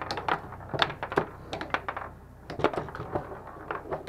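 Foosball table in fast play: a quick, irregular run of sharp clacks and knocks from the ball, the player figures and the rods.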